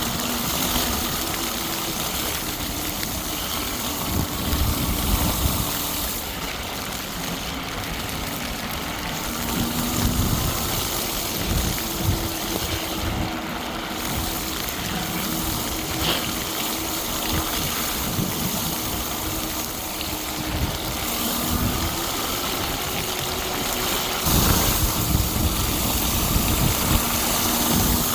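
Tyres of a 1000 W electric bike rolling through snow and slush, with wind buffeting the microphone in uneven low gusts. A faint steady whine from the motor runs underneath.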